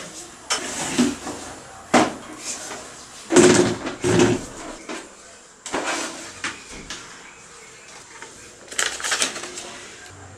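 Knocks, clicks and clatter of electronic equipment and its cables being handled and set up, in a string of separate bangs, loudest about three to four seconds in.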